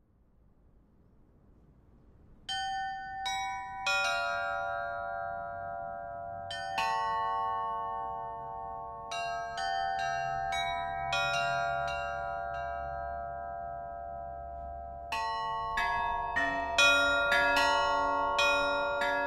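Small tuned bells struck one at a time, each note ringing on under the next, in a slow ringing pattern that starts about two and a half seconds in and grows busier near the end, where a deeper bell with a wavering hum joins.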